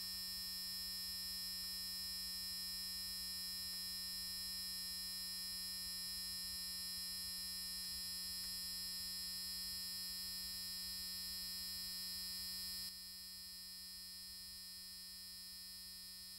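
A steady electronic drone of held pure tones, a low hum under a thin high whine. It steps slightly quieter about 13 seconds in.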